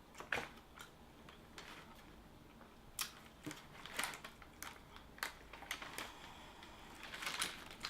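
Eating sounds from a sandwich: a dozen or so soft, irregular clicks and crunches, a few more bunched together near the end.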